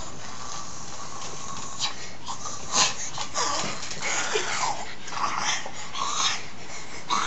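A string of short, breathy wheezing sounds, some sliding in pitch, about one a second, over a steady hiss.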